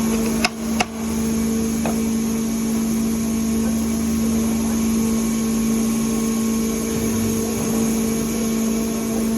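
Steady hum of factory machinery with a strong low tone, broken by two sharp clicks about half a second and a second in.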